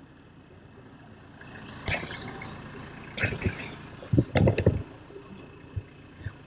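A road vehicle passes by, its low rumble swelling from about a second and a half in, with a few short bursts of voices around the middle.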